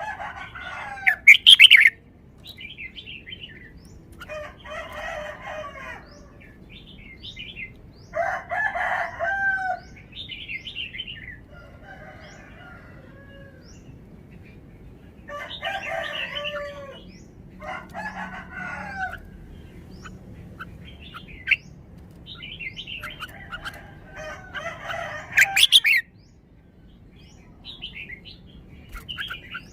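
Red-whiskered bulbul singing a run of short, varied warbling phrases, one after another with brief pauses between them. The loudest phrases come about a second in and just before the end.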